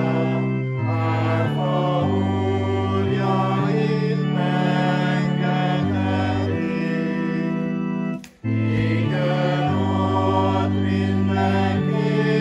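Congregation singing a hymn to organ accompaniment, the organ holding long steady chords that change about every second. The sound breaks off for a moment a little after eight seconds in, then carries on.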